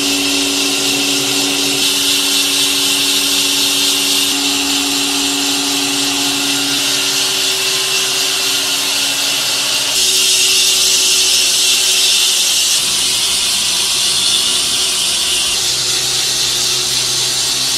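Sawmill machinery running steadily: motors hum under a loud hiss of a band saw mill cutting through a log. The sound shifts abruptly several times.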